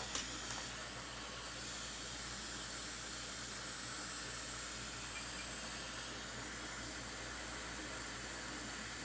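A hot air rework station blows with a steady hiss over the board, heating the flux around a freshly placed chip. There is a short tap just after the start.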